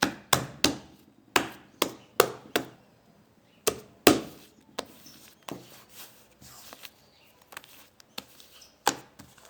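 A sticky lump of slime mixed with kinetic sand worked by hand on a tabletop, giving a run of sharp slaps in the first four seconds, then softer handling noises and one more slap near the end.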